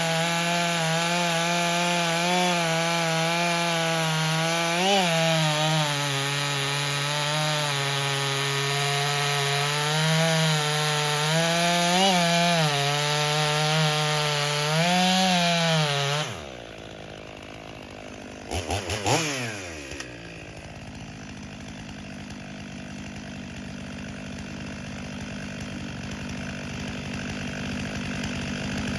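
Stihl MS 500i chainsaw running at full throttle through a log, its pitch dipping and recovering a little under load. About sixteen seconds in it drops off to idle, gives three quick throttle blips, then idles.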